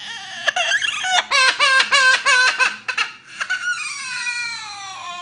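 An animal crying: a fast run of short, pitched yelps, about four a second, then a long wail that slides steadily down in pitch.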